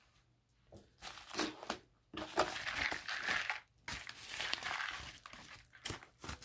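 Padded paper mailer crinkling as it is picked up and handled, in irregular rustling bursts after a quiet first second.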